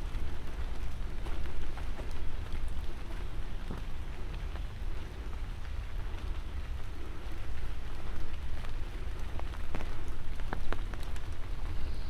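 Light rain falling, a steady patter over a low rumble, with a few sharper drip ticks near the end.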